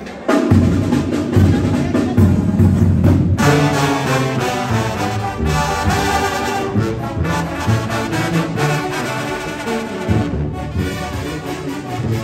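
Background music with brass instruments, cutting in loudly just after the start.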